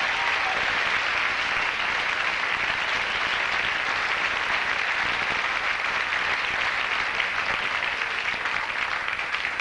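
Audience applauding steadily to welcome a comedian onto the stage, thinning a little near the end.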